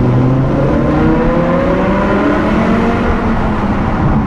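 BMW M6 E63's 5.0-litre V10 with a Supersprint exhaust accelerating hard through a tunnel, heard from inside the car. The revs climb for about two and a half seconds, then fall back and start climbing again.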